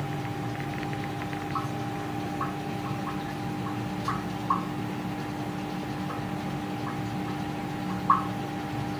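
Aquarium pump humming steadily, with small irregular water plinks or bubble pops, about one or two a second, the loudest near the end.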